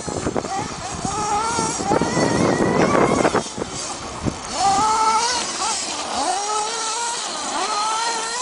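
Kyosho Inferno ST radio-controlled stadium truck's small engine revving up and down again and again as the truck is driven, each rise in pitch lasting about a second. A couple of sharp knocks come about three and four seconds in.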